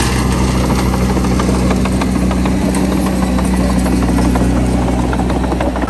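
Small crawler bulldozer's diesel engine running steadily under load as it pushes soil, with irregular clanking from its steel tracks.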